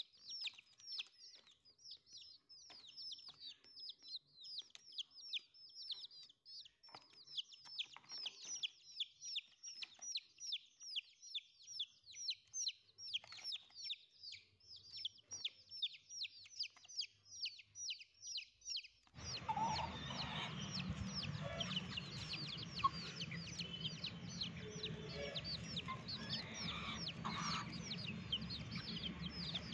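Young chickens peeping without pause, a quick run of short, high, falling peeps several a second. About two-thirds of the way through, a steady background noise comes in beneath the peeps.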